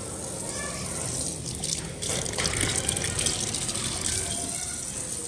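Kitchen tap running steadily into a stainless steel sink as fruit is rinsed under the stream, with a few brief splashes about two seconds in.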